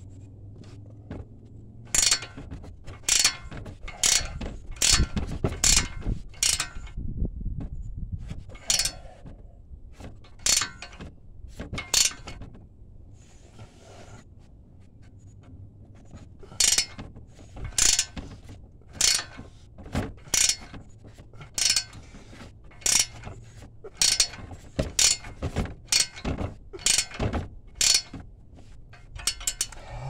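Hand tools working on a stubborn locking axle nut: a string of sharp metallic clicks and knocks, one to two a second, with a pause about halfway through, over a low steady hum.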